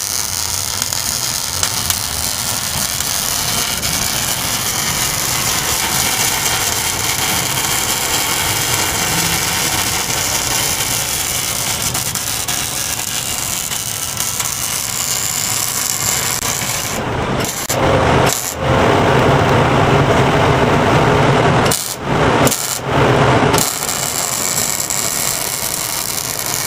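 Electric arc welding: a steady crackling hiss from the arc. It breaks off and restarts twice near the end.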